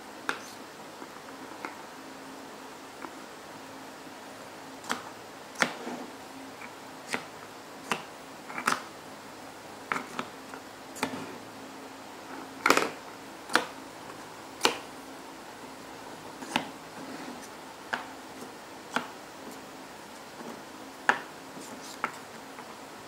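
Mini plastic speed-stacking cups clacking against each other and tapping down on a wooden tabletop as they are stacked up and collapsed back down. The clicks are sharp and irregular, about one a second, some in quick pairs.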